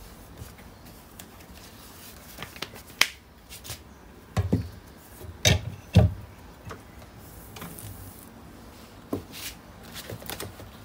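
Desk items being handled and set down by hand: a sharp click about three seconds in, then a run of knocks and low thuds between about four and six seconds in as a tablet is fitted into a desk stand, with scattered light taps near the end.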